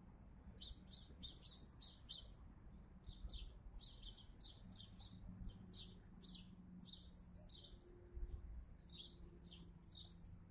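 Small birds chirping: many short, high chirps, several a second, with a faint steady low hum beneath.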